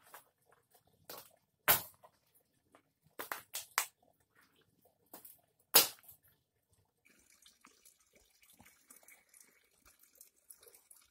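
Dry branches snapping as they are broken up by hand for firewood: a sharp crack about two seconds in, a quick run of three or four near the middle, and the loudest crack about six seconds in. After that, only faint scattered rustles and ticks.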